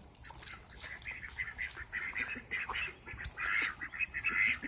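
Backyard chickens calling: a run of short, repeated squawks and clucks in quick succession, busiest in the second half.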